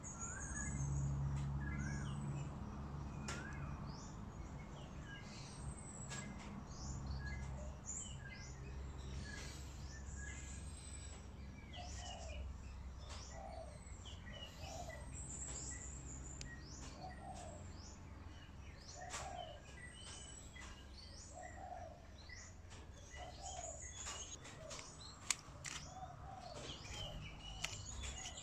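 Wild birds chirping and calling, with many short chirps and whistles and a low call repeating about once a second, over a steady low hum. There is a single sharp click near the end.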